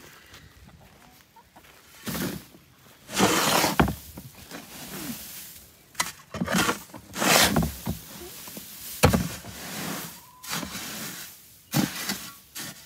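A metal hoe scraping and scooping garden soil and perlite in a plastic mixing tub, in a series of irregular rasping strokes, the loudest a little after three seconds and again around seven and nine seconds.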